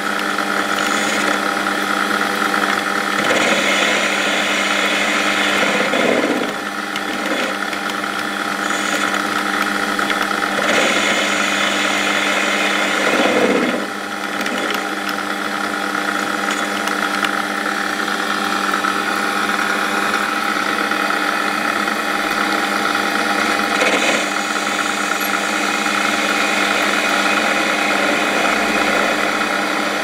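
Metal lathe running under a facing cut on a home-cast aluminium bar: a steady motor and gear whine, with the hiss of the tool cutting swelling and easing several times. It is cutting cleanly.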